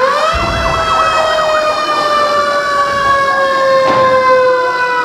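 Fire engine siren wailing: its pitch rises sharply at the start, then falls slowly and steadily.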